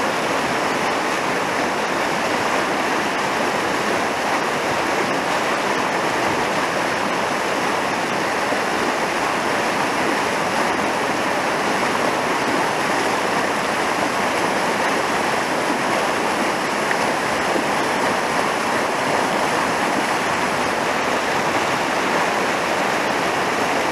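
Fast mountain river rushing steadily over whitewater rapids, close by and loud.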